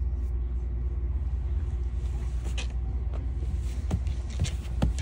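Boat engine running, a steady low rumble with a constant hum, with a few light knocks in the second half.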